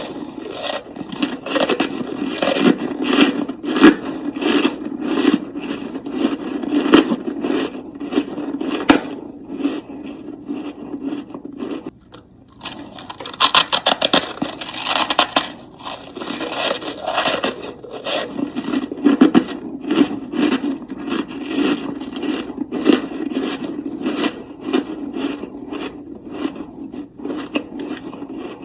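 Freezer frost crunching: a dense run of irregular crunches and scrapes, with a short lull about twelve seconds in.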